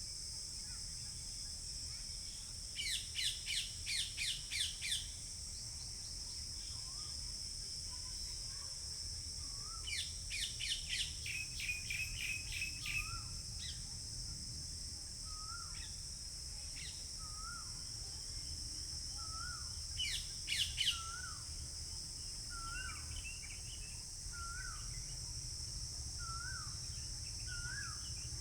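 Birds calling over a steady high insect drone: three bouts of rapid, bright chirps, and from about halfway on a short rising note repeated roughly every second and a half. A faint low rumble runs underneath.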